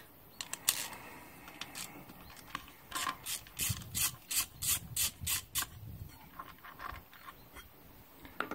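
A hand tool working the last fastener on a Suzuki Alto's carburettor air filter housing base: a few light clicks, then a run of about eight short, evenly spaced strokes, about three a second, that stop about halfway through.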